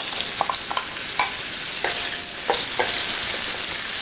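Onion sizzling and frying in hot ginger-infused oil in an electric wok, with a steady hiss, while a utensil stirring it clicks against the wok about seven times in the first three seconds.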